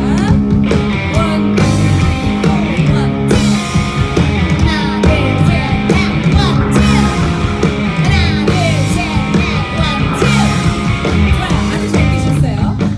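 Rock band playing live, loud and continuous, with a singing voice over the band.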